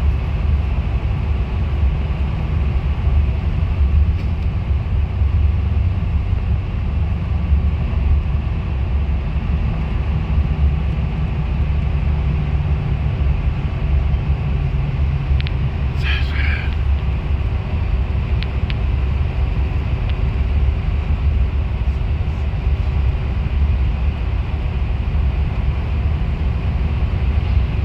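Steady low rumble of a moving bus's engine and road noise, heard from on board, with a brief high chirp about 16 seconds in.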